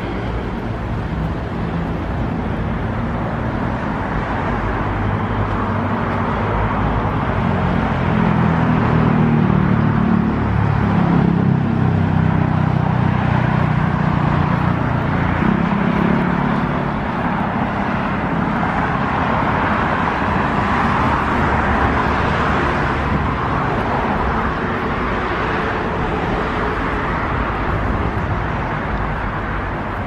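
Steady road traffic noise, with a vehicle engine's low drone swelling for several seconds in the first half.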